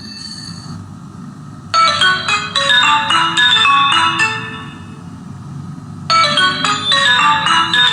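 A phone ringtone melody of quick short notes playing through an 80 W Philips woofer speaker. The phrase starts about two seconds in and dies away, then starts again about six seconds in, as the ringtone loops.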